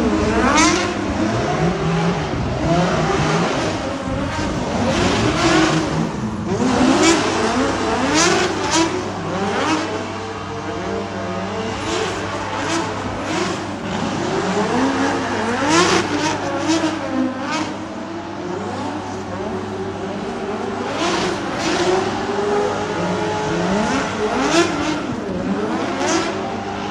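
Drift cars' engines revving hard on the track, the pitch climbing and dropping over and over as car after car goes through.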